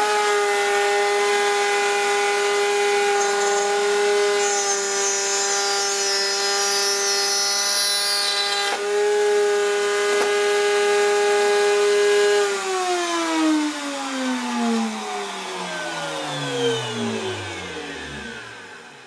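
Table-mounted router running at full speed with a steady high whine while a keyhole bit cuts a slot in a plywood board. About twelve seconds in it is switched off, and its pitch falls steadily as it spins down to a stop.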